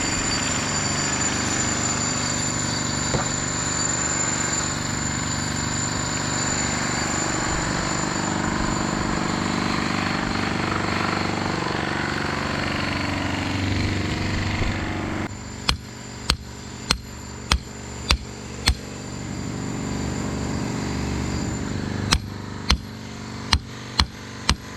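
A machine's engine running steadily. About two-thirds in it drops away and a series of sharp, evenly spaced impacts follows, roughly one to two a second, with a short pause partway, as when the old concrete slab is being broken up.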